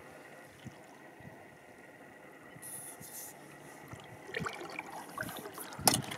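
Water trickling and lapping around a kayak, with small scattered drips and splashes, then a sharp knock near the end.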